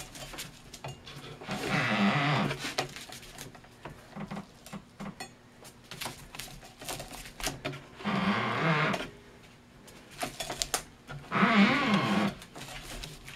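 Spiking string pulled taut around a paper cylinder firework shell as the shell is turned on a roller turntable: three stretches of rubbing and creaking about a second long each, with scattered clicks and knocks of handling between.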